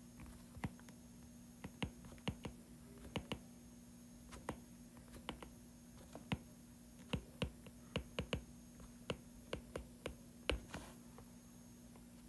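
Stylus tip tapping and clicking on a tablet screen during handwriting: faint, irregular sharp clicks about two a second, over a faint steady low hum.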